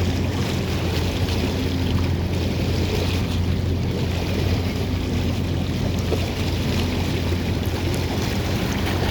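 Steady wind and surf noise over a constant low hum.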